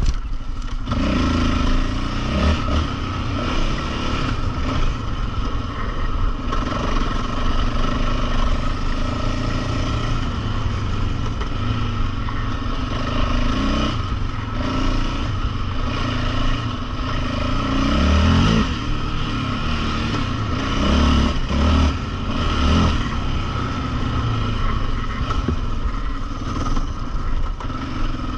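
Yamaha Raptor 700R sport ATV's single-cylinder four-stroke engine running under riding, revving up and down, with clear rises in pitch about a second in and again about two-thirds of the way through.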